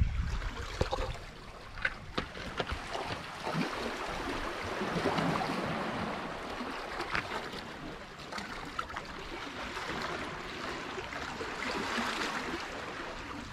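Shallow water washing at the shoreline in slow swells, with a few short splashes and knocks as a striped bass is landed at the water's edge.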